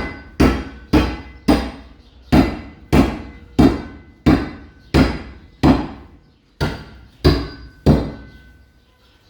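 Hammer blows at a steady pace of roughly two a second, each sharp strike followed by a short ringing tail. The blows stop about eight seconds in.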